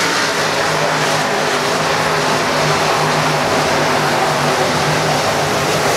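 A field of dirt-track modified race cars with V8 engines running together at racing speed, a steady wall of engine noise.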